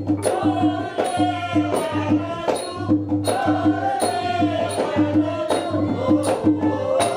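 Traditional Cambodian shadow-puppet theatre music: a wavering sustained melody over a steady low drumbeat about twice a second, with sharp percussion strikes on the beat.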